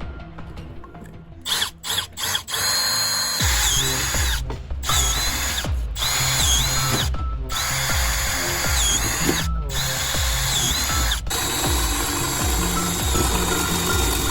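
Power drill running in bursts, its high whine dipping in pitch again and again as the bit bites, over background music with a steady beat.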